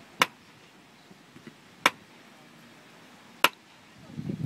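Jugger timekeeper beating out the stone count: three sharp single strikes, evenly spaced about one and a half seconds apart, marking game time. Near the end a murmur of noise starts to build.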